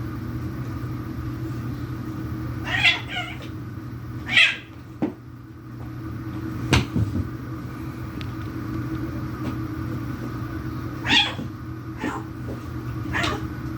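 Cats fighting: several short outbursts of hissing and yowling, a few seconds apart, with a sharp click in the middle, over a steady low hum.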